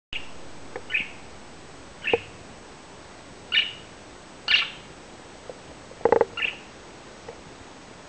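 Young male budgerigar giving about six short, high chirps spread over several seconds. A few sharp clicks come between them, the loudest a quick run of clicks about six seconds in.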